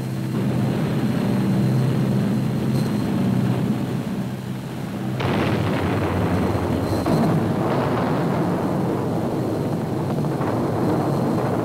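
Propeller aircraft engines droning steadily, then a sudden explosion about five seconds in as a rocket strikes the plane, followed by continuing rumbling blasts.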